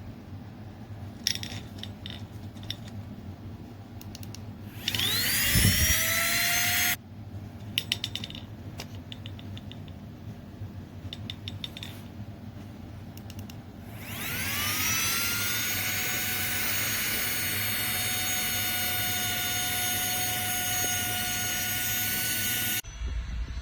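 Small motor of a battery-powered portable air pump spinning up with a rising whine. It runs for about two seconds and switches off. After a few clicks it starts again, settles into a steady high whine for about eight seconds, and cuts off near the end.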